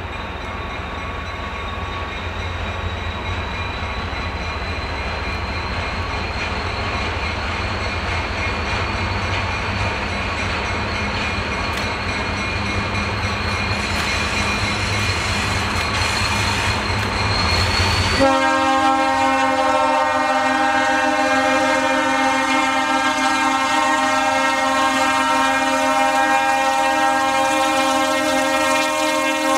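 Diesel locomotives pulling a freight train approach, their engine rumble and a steady high whine growing louder. About two-thirds of the way through, the lead locomotive's air horn sounds and is held steadily to the end.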